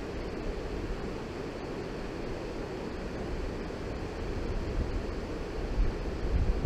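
Steady rush of flowing river water, with wind buffeting the microphone in low gusts that peak briefly near the end.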